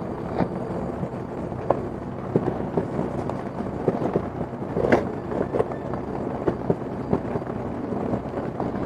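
Scattered small knocks, taps and scrapes of hands working potting soil and pots while repotting succulents, over a steady low outdoor background rumble.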